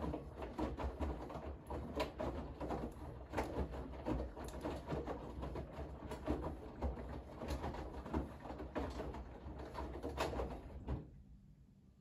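Bosch front-loading washing machine drum tumbling a full load of wet laundry in the wash cycle: irregular sloshing thumps over a low motor hum, which stop abruptly near the end as the drum comes to rest.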